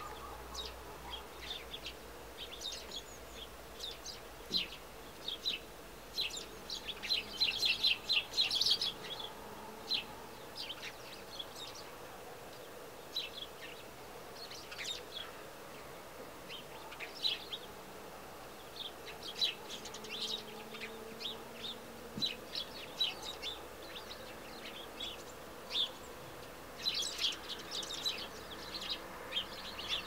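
Sparrows chirping: a long run of short chirps, busiest in a flurry about seven to nine seconds in and again near the end.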